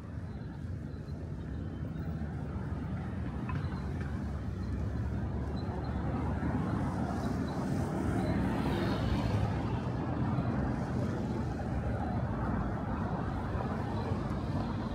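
City road traffic: a steady low rumble of engines and tyres, growing louder to its peak about halfway through.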